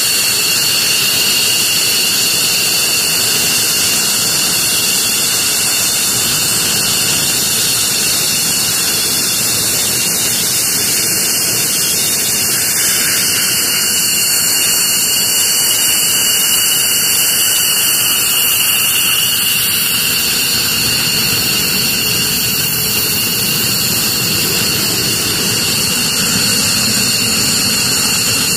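F-15C Eagle fighter jets' twin Pratt & Whitney F100 turbofan engines running at low power while taxiing: a steady high-pitched turbine whine over a continuous rushing roar.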